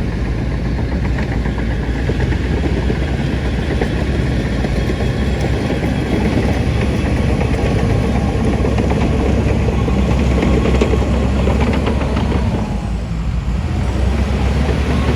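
Heavy diesel engine of earthmoving machinery running steadily. It eases briefly about three-quarters of the way through, then picks up again.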